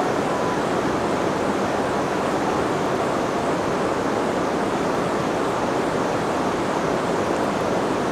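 River water rushing and flowing, a steady unbroken roar of current.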